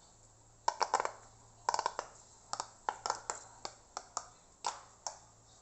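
A handmade paper fidget toy being pressed and handled, giving a run of sharp crinkly clicks and taps. Two quick clusters come first, then single clicks about three a second.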